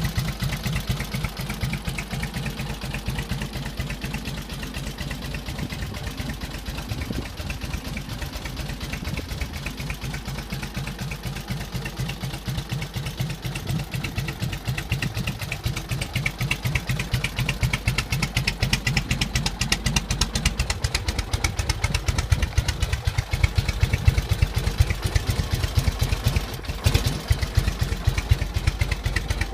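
1946 Indian Chief's side-valve V-twin engine running at idle in a steady, uneven-beat pulse; from about halfway through it picks up a little and gets louder.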